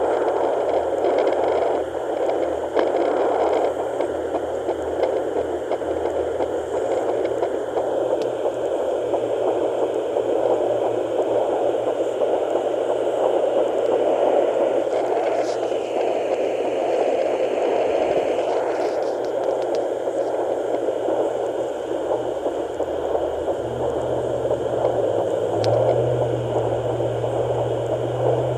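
Handheld fetal doppler's speaker giving a steady static hiss with scratchy rustling as the probe is moved over the belly, with no clear heartbeat rhythm. A low hum joins near the end.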